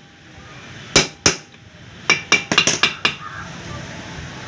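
An oil seal being hammered into an aluminium motorcycle crankcase with a metal drift: two heavy knocks about a second in, then a quick run of lighter, ringing metallic taps as the seal is driven home.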